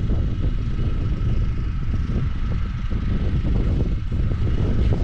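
Wind buffeting the camera microphone: a steady, heavy low rumble that flutters irregularly, with a faint steady whine above it.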